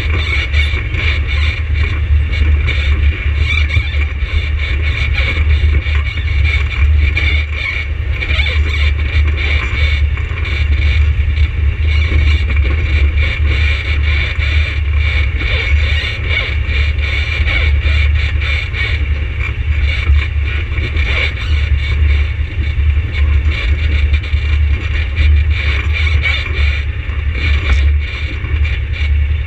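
ATV engine running steadily, a constant low drone with no change in pace.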